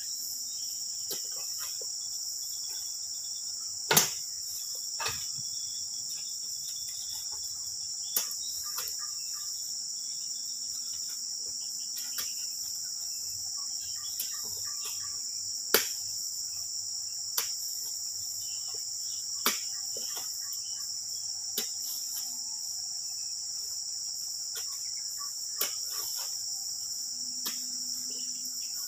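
Steady high chirring of insects, broken by irregular sharp knocks, about a dozen of them, as oil palm fruit bunches are thrown up into a tractor trailer by hand.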